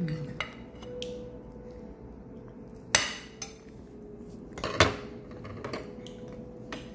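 Knife and fork clinking and scraping against a ceramic plate, with two louder clinks about three and five seconds in, over a faint steady hum.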